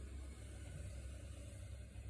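Faint steady low hum with a light hiss of background noise.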